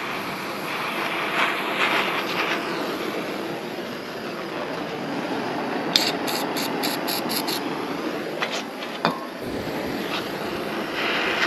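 Gas torch flame hissing steadily while it heats a seized nut. About halfway through, a quick run of about six sharp ticks.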